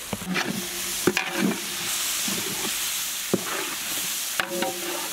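Onion, tomato and spice masala frying and sizzling in oil in a large metal pot while a metal ladle stirs it, scraping and knocking against the pot several times.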